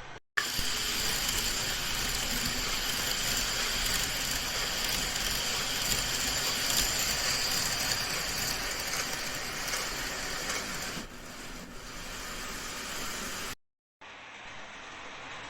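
N gauge model train running on its track: the small motor and gears whine at a steady high pitch over a continuous rolling rattle. The sound drops back about eleven seconds in and then cuts off abruptly.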